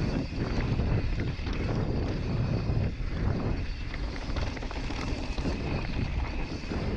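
Wind buffeting the microphone as a Yeti SB5 full-suspension mountain bike rolls quickly down a dirt singletrack, with tyre noise and a steady patter of small ticks and rattles from the bike over stones.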